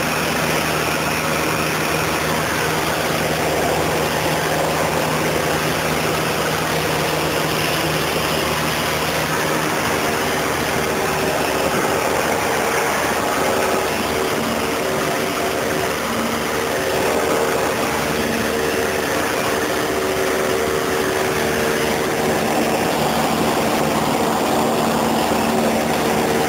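Cessna 152's four-cylinder Lycoming O-235 engine and propeller running steadily, heard from inside the cockpit, with a constant rush of wind and airflow noise.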